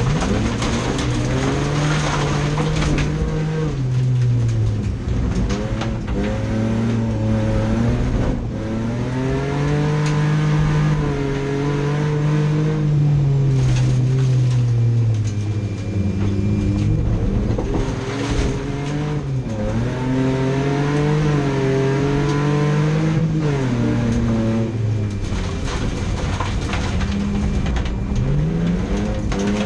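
Racing car engine under hard throttle, its pitch climbing and dropping back sharply several times.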